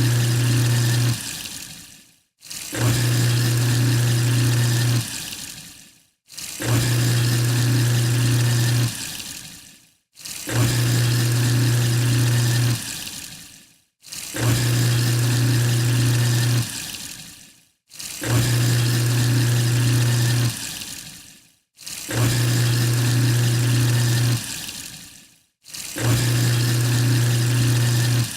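Garbage disposal unit in a sink running in short repeated bursts: each time its motor hums steadily with water rushing for about two seconds, then cuts off and winds down, starting again about every four seconds.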